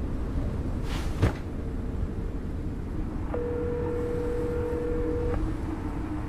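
A telephone ringback tone heard in the phone: one steady two-second ring tone in the middle. It plays over a steady low rumble, with a single sharp knock about a second in.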